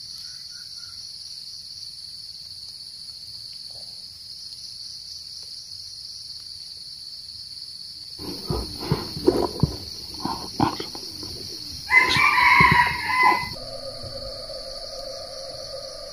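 A steady chorus of insects shrilling, with a run of knocks and rustles about eight seconds in. About twelve seconds in, a red junglefowl cock crows once, a call of about a second and a half. A steady hum follows it.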